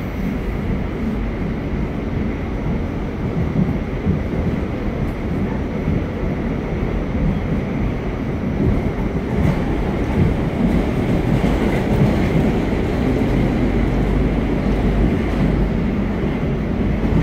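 R46 subway train running along the track: a steady rumble and rattle of wheels on rail. It grows a little louder in the second half.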